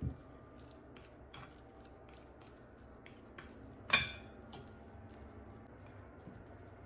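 Metal fork mashing steamed sweet potatoes in a bowl, clinking against the bowl in irregular taps, the loudest about four seconds in.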